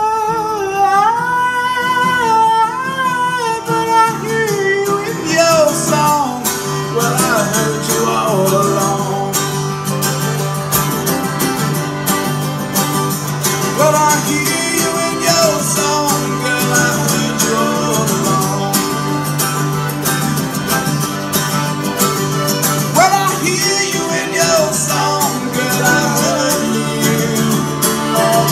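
Live acoustic band playing an instrumental passage of a country-folk song: strummed acoustic guitar, picked mandolin and button accordion.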